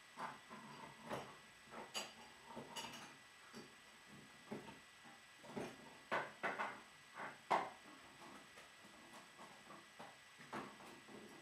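Scattered light clicks and knocks of objects being handled, at irregular intervals, with the loudest few about six to seven and a half seconds in.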